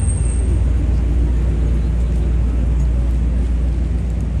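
City street ambience dominated by a steady low rumble of motor traffic.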